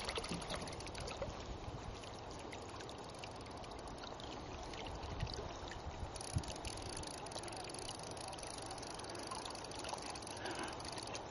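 River water flowing steadily, a continuous even rush, with a few faint knocks about five and six seconds in.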